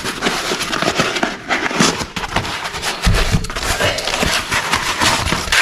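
Stiff brown wrapping paper and corrugated cardboard crinkling and rustling as they are torn and unrolled by hand from a new engine cylinder liner, with a dull knock about three seconds in.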